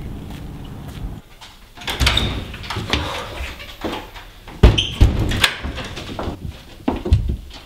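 A steady low rumble that cuts off about a second in. Then a door is handled in a small room: scattered clicks and knocks, the two loudest coming close together about halfway through.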